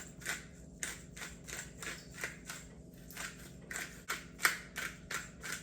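Pepper being added to seasoned ground meat: an even run of crisp, dry ticks, about four a second, stopping near the end.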